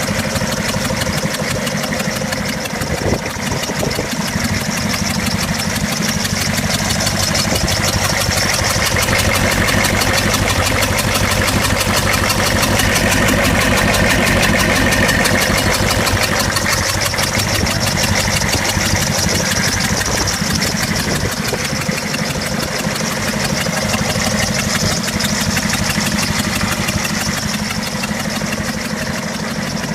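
6.5-litre Detroit Diesel V8 running at idle with a misfire, a steady rapid chugging throughout.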